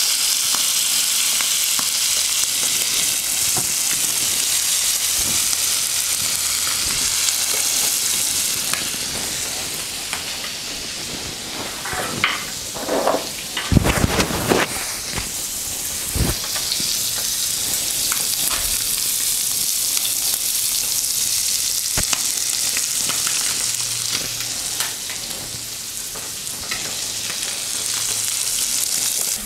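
Silverfish fillets frying in hot butter in a non-stick pan, with a steady sizzle. A few short knocks sound about halfway through.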